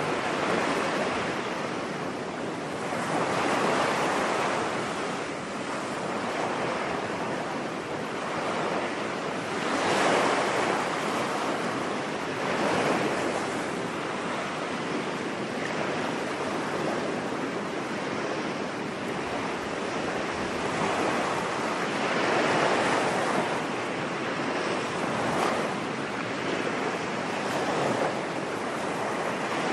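Ocean waves breaking on a beach: a steady wash of surf that swells and fades every few seconds.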